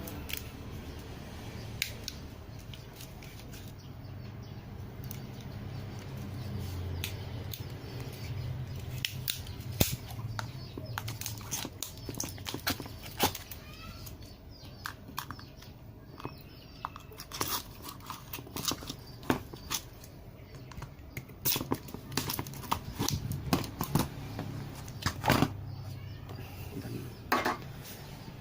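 Plastic container and plastic wrapping around a frozen ice block being pried open and handled: a run of irregular sharp clicks, cracks and knocks over a low steady hum.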